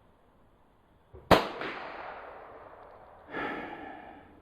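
A single .22 LR shot from a Ruger Charger pistol about a second in, sharp, with a long echoing tail. A shorter, weaker sound follows about two seconds later.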